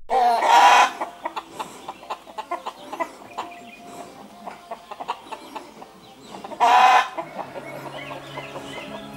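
Chickens and roosters clucking, with two loud calls, one right at the start and one about seven seconds in.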